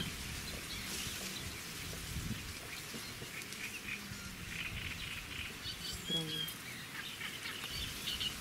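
Small birds chirping on and off over a low steady rumble.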